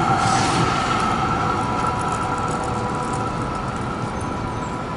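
Melbourne B-class tram running by, a steady noise with a whine of several held tones from its electrics, easing a little in loudness toward the end.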